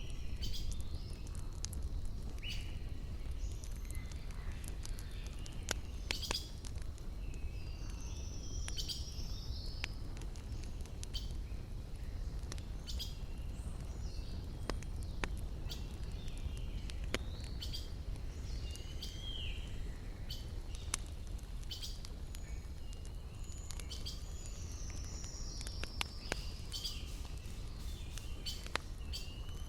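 Songbirds chirping in short gliding calls over the scattered sharp pops of a crackling wood campfire, with a low steady rumble underneath.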